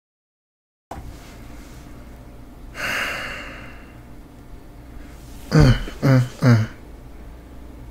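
A man breathes out long and close into the microphone about three seconds in. Near the end come three short, loud vocal sounds about half a second apart, each falling in pitch.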